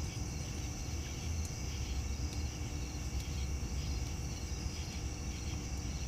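Night insects, crickets or similar, chirring in a steady high-pitched drone over a continuous low rumble.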